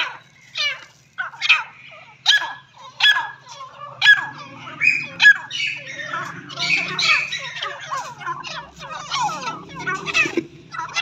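Grey francolins calling: sharp, squawking notes about one a second at first, then many overlapping calls from about four seconds in.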